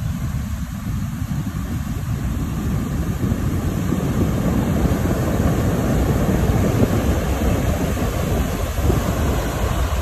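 Heavy post-typhoon surf breaking and washing up a stony beach, with wind buffeting the microphone. The rumble grows louder a few seconds in as a wave surges up the shore.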